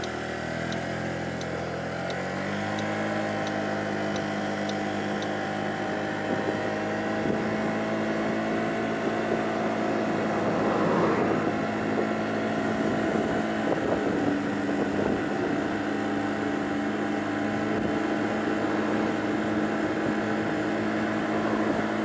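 Honda Giorno (Metropolitan) 49cc scooter engine pulling up to speed over the first two seconds or so, then running steadily at cruising speed, with wind noise on the microphone.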